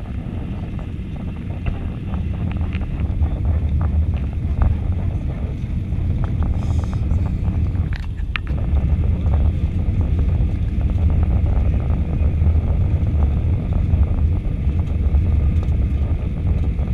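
Airbus A320 cabin noise heard from a window seat on approach to landing: a steady low rumble of the engines and airflow.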